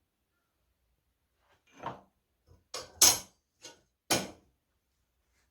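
Pieces of metal bar stock clunking as they are handled and set down on a bench: about six short knocks, the loudest about three seconds in.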